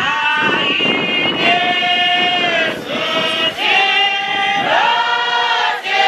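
Voices singing a church hymn together, holding long sustained notes with short breaks between phrases.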